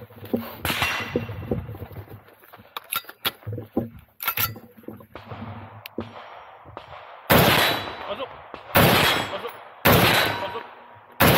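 Four loud gunshots in the second half, about a second and a half apart, each trailing off with a ringing tail. Lighter clicks and knocks, and one softer sharp bang, come before them.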